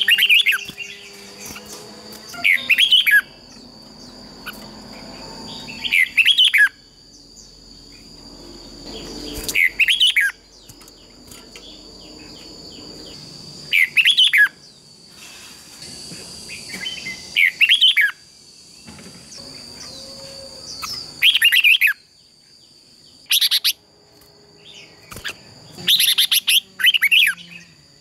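Red-whiskered bulbul singing short, bright, warbled phrases, one every three seconds or so. A steady high-pitched tone runs underneath throughout.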